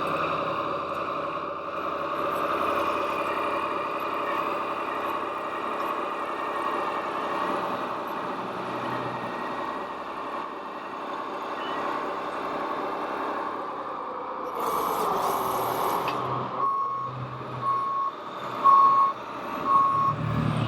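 Radio-controlled model trucks and construction machines running, their motors and sound-module engine noise making a steady drone. A short hiss about three-quarters of the way in is followed by a reversing beeper beeping about once a second.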